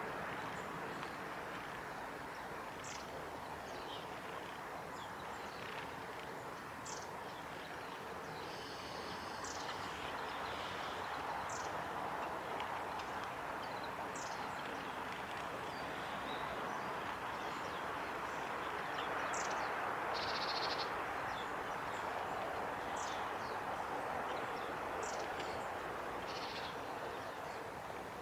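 Steady trickle of shallow running water, with short high bird calls every few seconds and a quick twittering trill twice.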